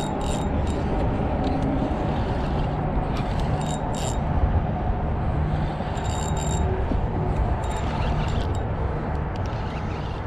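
Spinning reel cranked to retrieve a hooked fish, giving short runs of light clicking and rattling every second or two, over a steady low rush of wind on the microphone.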